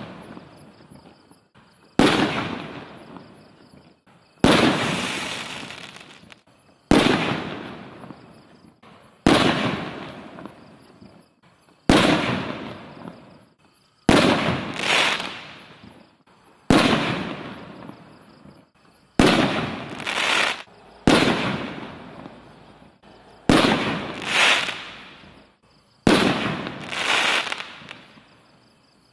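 Brothers Fireworks Grand Jury 5-inch canister artillery shells (1-3/4 in.) going off one after another: a sharp bang about every two and a half seconds, each dying away over a couple of seconds, and some followed closely by a second bang.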